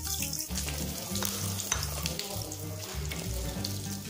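Whole spices (cumin seeds, black peppercorns, cinnamon, bay leaf and fennel) sizzling in hot oil in a non-stick kadhai, stirred with a wooden spatula, with background music underneath.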